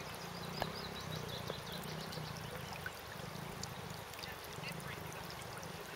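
Stream water running and trickling over the rocks of a stony burn bed: a steady wash, with faint voices in the background.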